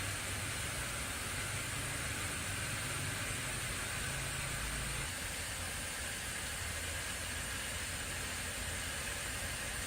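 Steady hissing noise with a low hum underneath; the hum drops away about five seconds in.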